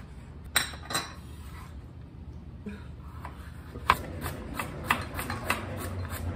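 Chef's knife chopping garlic and carrots on a cutting board: two sharp chops about half a second apart near the start, then, after a pause, a steady run of chops at about three a second.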